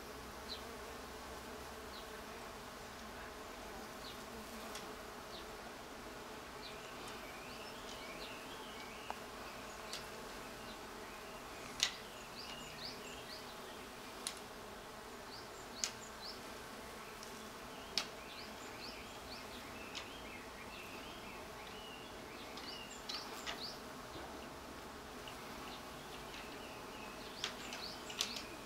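Bees buzzing steadily around wisteria blossoms, with short high chirps scattered through and a few sharp clicks in the middle.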